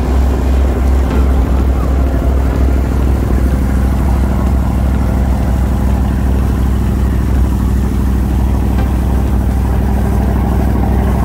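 A boat's engine running steadily under way, a deep drone, with the rushing hiss of the wake churning alongside the hull.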